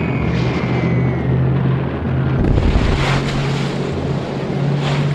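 Rushing wind and sea wash over a low steady drone, swelling twice: about three seconds in and again near the end.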